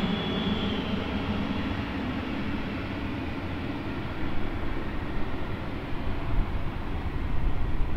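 Twin Pratt & Whitney Canada PW535A turbofans of a Cessna 560 Citation Encore running at taxi power as the jet moves away: a steady jet rumble with a faint high whine that fades out in the first couple of seconds.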